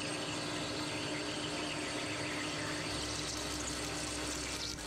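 Metal lathe turning a billet triple-clamp part under coolant: a steady machine hum under a constant hiss of the cut and the coolant spray, with a deeper hum coming in about three seconds in.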